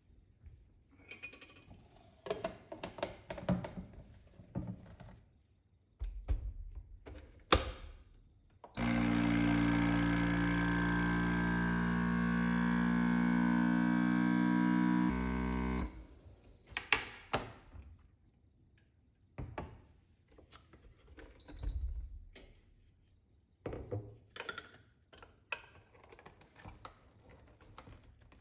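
Countertop blender motor running steadily for about seven seconds, then cutting off. Clattering and knocks of kitchenware before and after, and short electronic beeps twice after the motor stops.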